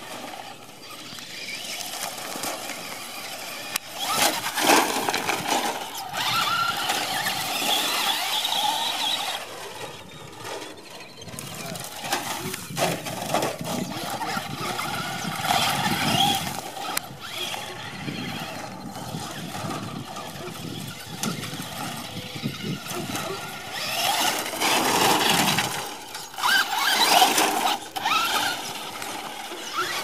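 Traxxas Slash RC short-course truck with its brushless electric motor, driven hard on loose dirt and gravel. The motor whine rises and falls in repeated bursts of throttle, and the tyres crunch and spray the dirt, loudest in a few surges.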